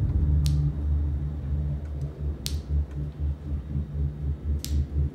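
Three sharp drips about two seconds apart, blood dripping from the end of a corrugated drain hose. Underneath is a low drone that begins to pulse about three times a second a couple of seconds in.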